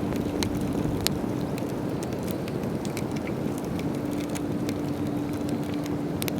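Wood campfire crackling, with scattered sharp pops, the strongest about a second in and a quick cluster near the end, over a steady low rumble and a faint steady hum.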